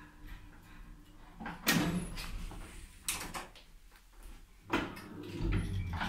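Elevator door and lock mechanism of a 1978 ZREMB passenger lift clunking three times, spaced about a second and a half apart. A low hum sets in near the end.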